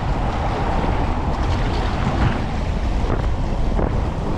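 Wind buffeting the microphone, a steady low rumble over the sound of moving water.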